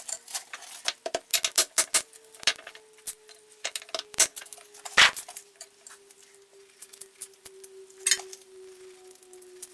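Metal objects clinking and clattering irregularly as they are handled, with one louder knock about halfway through, over a faint steady hum that slowly falls in pitch.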